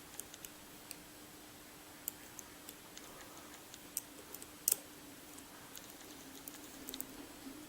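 Lock pick and tension wrench clicking faintly and irregularly against the pins of a Medeco biaxial lock while it is being picked, over a steady low hum.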